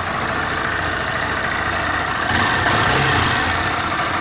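Honda Bros 160's single-cylinder air-cooled engine idling just after a start, swelling slightly for about a second near the middle. It is being run to show a valve tap that the owner hears at times but says is not loud right now.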